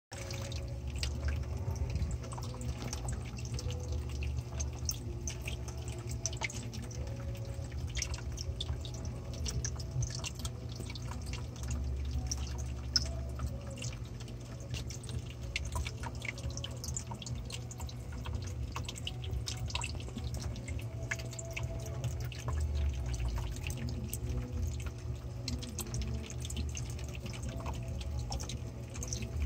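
Aquarium water trickling and dripping: many rapid, irregular small splashes over a steady low hum, with one sharper click about 13 seconds in.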